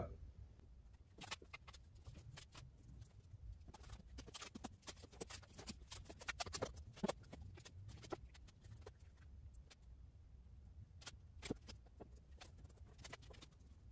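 Faint, irregular light taps and clicks of a rubber trunk weatherstrip seal being handled and pressed by gloved hands into a glued channel on a metal deck lid.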